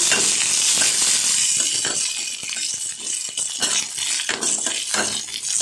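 Garlic cloves frying in hot oil in a kadai, stirred with a steel spatula that scrapes and clinks against the pan. The sizzle is loudest at first and thins after about two seconds, leaving mostly the spatula's clicks and scrapes.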